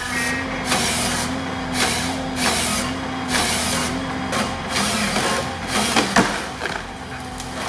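Heavy machine running, a steady engine hum under a series of loud hissing bursts about once a second.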